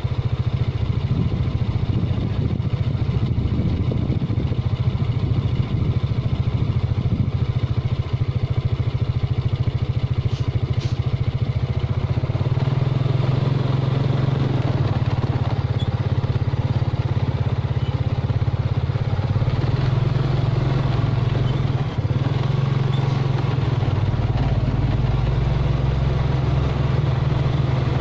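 Diesel engine of a Mitsubishi Fuso 220PS self-loader truck running steadily at low speed while hauling a Hitachi Zaxis 200 excavator on its deck.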